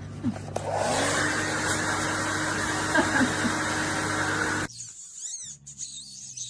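A loud, steady motor noise with a hum running through it, like a household appliance running, which cuts off suddenly about four and a half seconds in.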